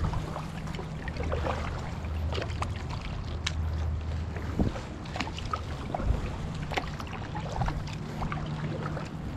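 Kayak paddling: a double-bladed paddle dipping and pulling through the water, with splashes, drips and small knocks and clicks scattered through, over a steady low hum.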